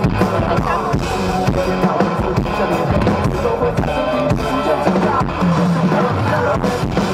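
Live band music: a drum kit played with regular hits under a full band.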